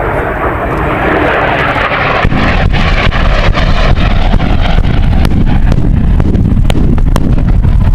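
Harrier jump jet's Pegasus turbofan, its jet noise rising as it runs in low, then from about two seconds in the deep rumble of simulated-bombing pyrotechnic blasts along the runway, with many sharp cracks on top.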